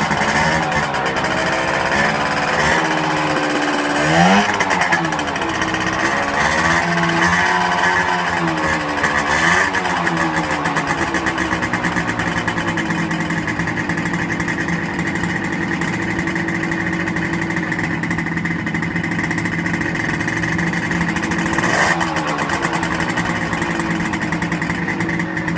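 Engine of an old vehicle being warmed up just after starting. It is revved up and down several times in the first ten seconds or so, with a sharp rise about four seconds in, then settles into a steady idle.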